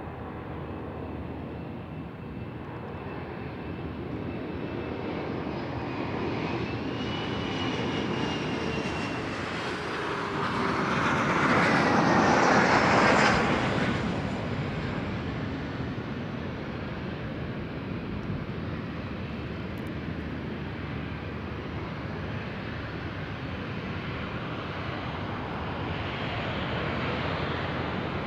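Boeing 737 jet airliner taxiing, its turbofan engines running at low power with a steady rush and a faint high whine. The sound swells to its loudest about twelve seconds in as the jet passes closest, then eases off again.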